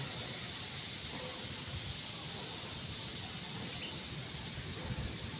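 Steady hiss of outdoor background noise with irregular low rumbling underneath, a little stronger about five seconds in; no meowing.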